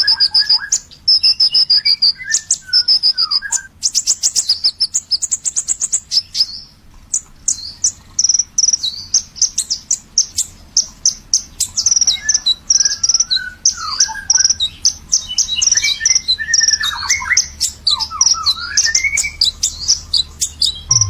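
A kolibri ninja sunbird singing hard in a long, unbroken song. It is a rapid string of high chirps and trills, mixed with short lower notes that slide downward.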